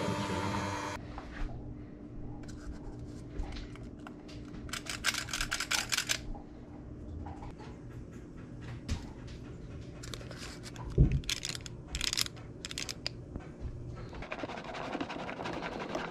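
Kitchen stand-in for batter work: an electric hand mixer whirring steadily in a bowl of cake batter, its high whir cutting off about a second in. Then come irregular scrapes and clicks of batter being poured into cupcake liners, with a single low knock about eleven seconds in.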